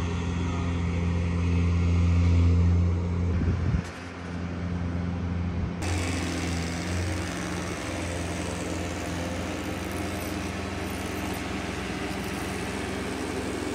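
An engine running steadily, its sound changing abruptly about four seconds in and again about six seconds in.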